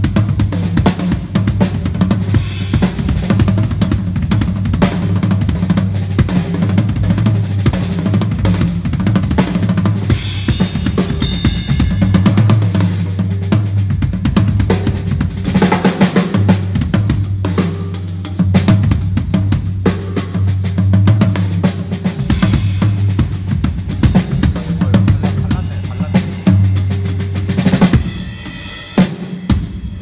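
Pearl Reference Pure drum kit (18-inch bass drum, 8- and 14-inch toms, 14-inch snare) with cymbals, played as a busy improvised groove with fills, its drums damped with a few gel mute pads. About two seconds before the end the playing thins to a few scattered hits.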